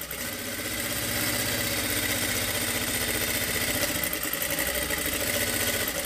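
Industrial lockstitch sewing machine running steadily at speed, the needle stitching a boat-neck facing down along a blouse neckline, then stopping near the end.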